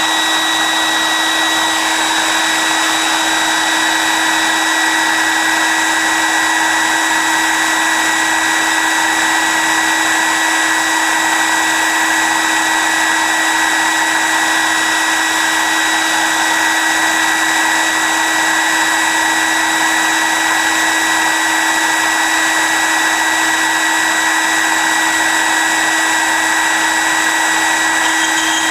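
Dremel high-speed rotary tool running with a 1/8-inch diamond bit, drilling a hole in a piece of glass held under water: a steady, unchanging whine. It starts abruptly just before and holds the same pitch throughout.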